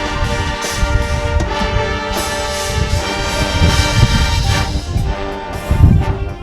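High school marching band playing held brass chords over bass drum and percussion hits.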